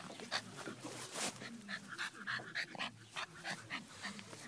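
Chow Chow puppy making small dog noises close up, among many short irregular clicks.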